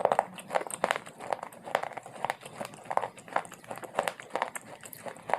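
Close-miked chewing of dry baked clay, a steady run of crisp crunches about twice a second.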